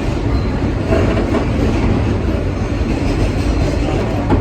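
New York City subway F train running between stations, a steady loud rumble of wheels on the rails heard from inside the car, with a few rail clicks.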